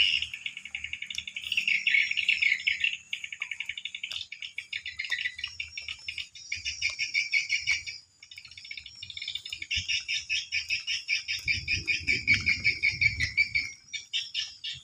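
Swiftlets twittering: dense, rapid high chirping trills that repeat almost without pause. About three-quarters of the way through, a low rumble joins in for a couple of seconds.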